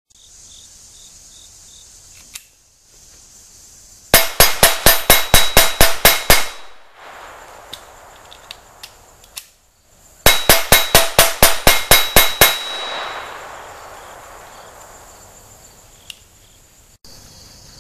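Two strings of rapid .22 LR pistol fire from a Smith & Wesson M&P 22 Compact, about a dozen shots each at roughly five a second. A steel plate target rings with the hits. Insects chirr faintly between the strings.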